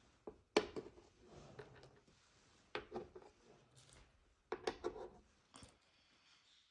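Hard plastic parts of a pegboard cat food maze being handled and pushed into the board's holes: four short bursts of clicks and knocks.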